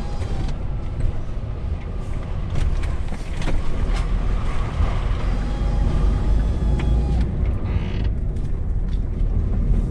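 DAF truck's diesel engine running at low speed, heard from inside the cab, with scattered clicks and knocks from the cab as the truck drives along.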